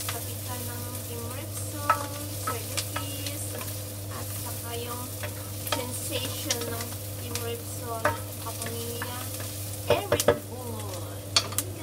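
Wooden spoon stirring and scraping sliced sausage and onions in a non-stick frying pan, over a light sizzle of frying. The spoon knocks against the pan again and again, with a quick run of louder knocks about ten seconds in.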